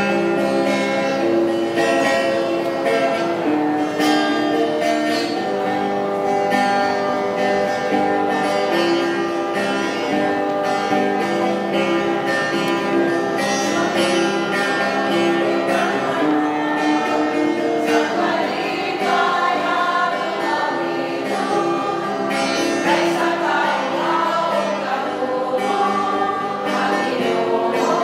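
Offertory hymn: a church choir singing with plucked-string accompaniment, likely guitar, in a steady, continuous flow of held notes.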